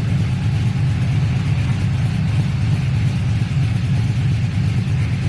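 2000 Chevy Silverado's cammed LS V8 idling steadily, a continuous low rumble.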